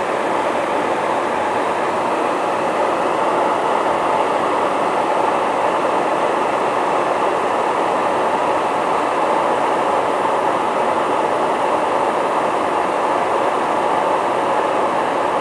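Steady, unchanging rush of airflow and engine noise inside a KC-135 tanker in flight.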